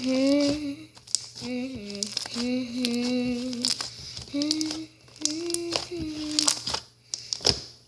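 A girl singing a wordless tune to herself in held, steady notes, with short crackles and clicks from slime being kneaded.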